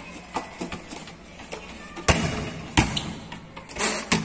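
Rubber balls thrown at a goalkeeper, thudding on a concrete floor and walls: a series of separate thuds, the loudest about two and three seconds in.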